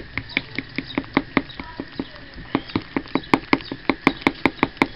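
Pancake batter being stirred briskly in a glass measuring cup, the utensil clinking against the glass about five times a second, with a brief pause about two seconds in.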